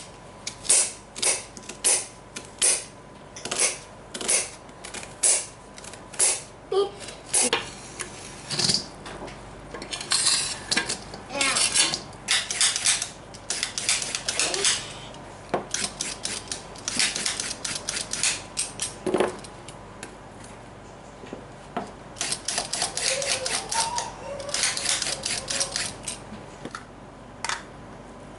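Kitchen utensils and dishes clinking and knocking while food is prepared. First comes an even run of sharp knocks, about two a second, then several bursts of quicker clatter.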